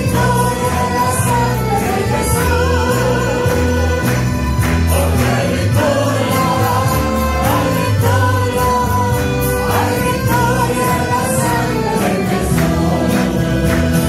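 Church string ensemble of mandolins and guitars strumming an evangelical chorus in a steady rhythm, with voices singing the melody over low bass notes.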